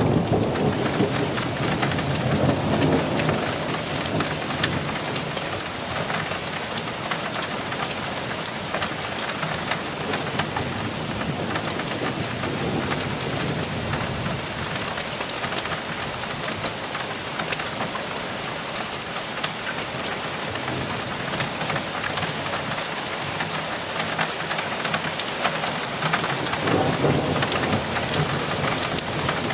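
Steady rain falling during a thunderstorm, with thunder rumbling low in the first few seconds and again near the end.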